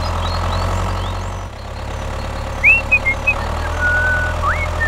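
A tractor engine running steadily, dipping briefly about a second and a half in. A few short high chirps come in over it in the second half.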